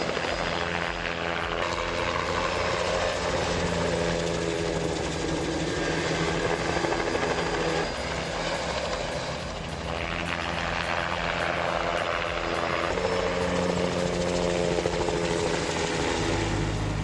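Helicopter running steadily, its turbine and rotor making an even drone. Near the end a deeper, low rumble takes over.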